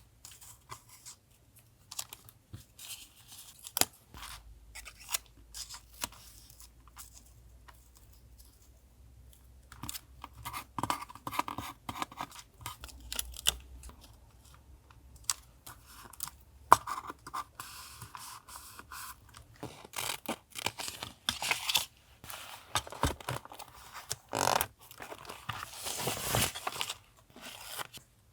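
Paper being handled for a collage journal page: rustling, scraping and crinkling, with many sharp clicks and snips, busier in the second half.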